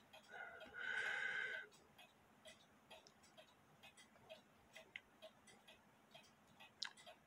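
Faint mechanical clock ticking evenly, about two ticks a second. A brief high, steady hum sounds for about a second and a half near the start.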